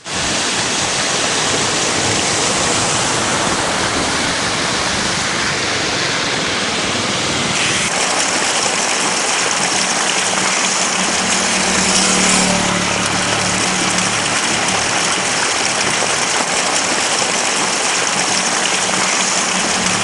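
Steady rushing noise of rain and floodwater on waterlogged roads, with vehicles driving through the water. The sound shifts about eight seconds in and swells briefly a little past the middle, with a low hum.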